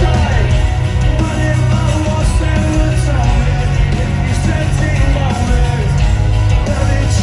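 Live rock music with singing, played loud through a festival PA system and heard from among the crowd, with a heavy bass and drum low end.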